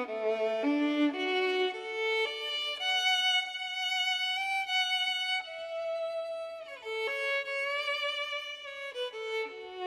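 Background music: a slow bowed fiddle melody with long held notes and sliding changes of pitch between them.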